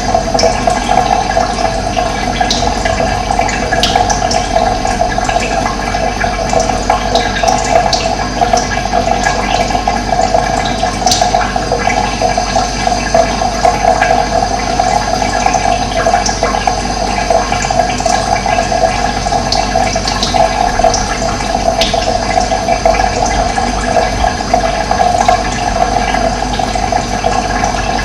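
Steady running water, a continuous gurgling flow, with a few short, high bird chirps scattered over it.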